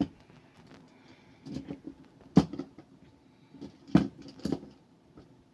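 A handful of sharp plastic and metal clicks and knocks from a circuit breaker lockout device being handled and pushed onto a miniature circuit breaker, the loudest about two and a half and four seconds in.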